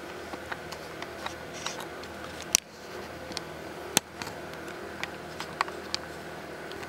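Steady fan-like room hum with scattered light clicks and two sharper knocks, about two and a half and four seconds in, from the camera being handled and moved.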